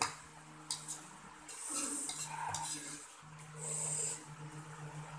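Metal spoon clicking against a bowl of instant noodles, then two long slurps of noodles and broth, about two seconds in and again near four seconds. A steady low hum runs underneath.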